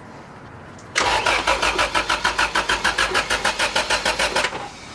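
Starter cranking the freshly swapped engine of an Acura Integra for about three and a half seconds, an even chug of roughly seven pulses a second, then stopping without the engine catching.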